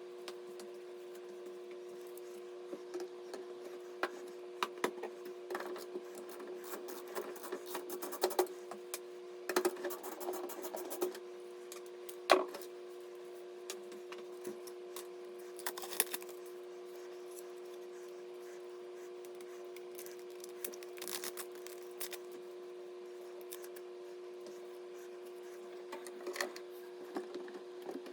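Scattered clicks, taps and short rustles of hands handling small hard parts, over a steady low hum.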